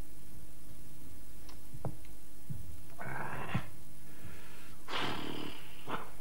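Men sighing with breathy, satisfied exhales after gulping a cold drink, twice, about three and five seconds in, with a few short knocks of mugs set down on a wooden table. A faint steady hum runs underneath.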